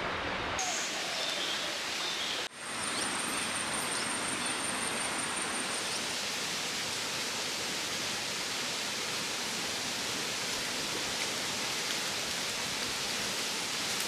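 Steady rushing of a rocky forest stream.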